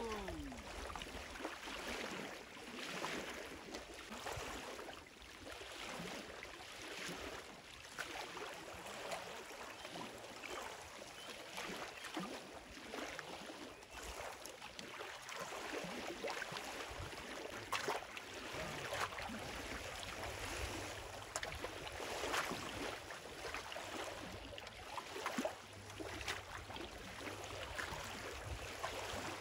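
Small lake waves lapping and splashing against a wooden dock, in irregular slaps.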